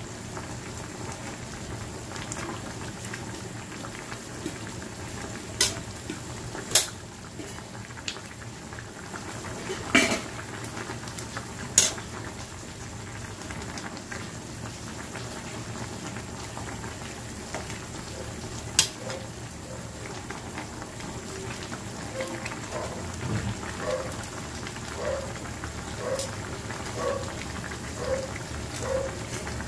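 Pot of chicken tinola soup boiling at a rolling boil, a steady bubbling hiss. A few sharp clinks of a metal spatula against the pan come in the first half. Near the end the bubbling settles into a regular plop about once a second.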